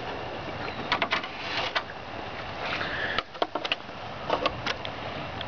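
Handling noise: scattered clicks and rustling as a tape measure is pulled out and held against the plastic airbox of the truck's intake.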